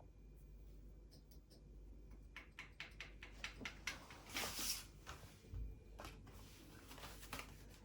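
Light clicks and taps of metal hooks and rail parts being handled, starting about two and a half seconds in, with a brief scraping rub a little past the middle.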